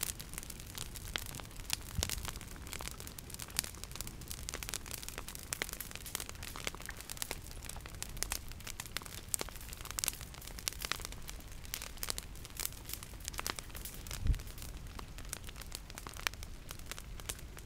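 Irregular crackling and snapping at the edge of an advancing pahoehoe lava flow from Kilauea, where it creeps into dry brush. There is a low thump about fourteen seconds in.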